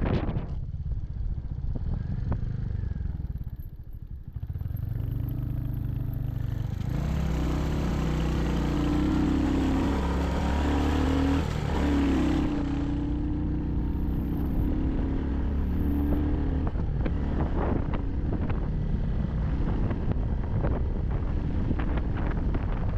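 Royal Enfield Hunter 350's single-cylinder engine running as the motorcycle is ridden. It eases off about four seconds in, then pulls harder from about seven seconds in, with a rushing hiss over it for several seconds.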